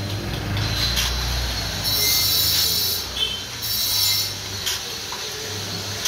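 Hose-fed two-component spray-foam gun spraying polyurethane foam in hissing bursts, a longer one about two seconds in and a shorter one a second later, over a steady low hum.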